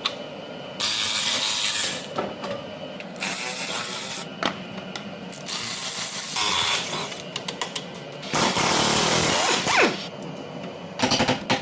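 Power tools running in short bursts of a second or two that start and stop abruptly, as in quick cuts of workshop work.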